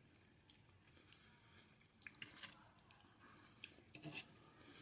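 Near silence with faint, soft chewing and wet mouth sounds and a few small clicks, mostly in the second half.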